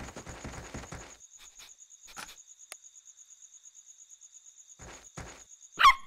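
Cartoon footsteps of children and a small dog running, a quick patter that stops about a second in, over steady chirping of crickets. A sudden loud cry just before the end.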